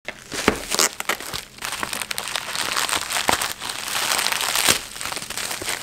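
A silver plastic poly mailer bag crinkling and rustling as it is handled, with many sharp crackles.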